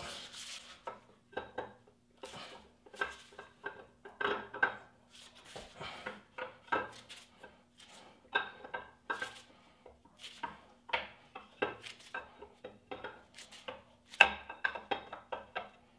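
Camshaft being worked by hand out of a Chevy 350 small-block, its steel lobes and journals clinking and scraping against the block and cam bearings in an irregular string of light metallic clinks.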